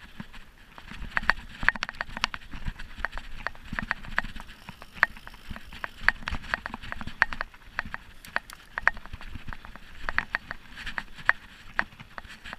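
Mountain bike rattling over a rough dirt singletrack: irregular sharp knocks and clatter, several a second, from the bike's chain and parts jolting on the bumps, over a low rumble of tyres on the trail.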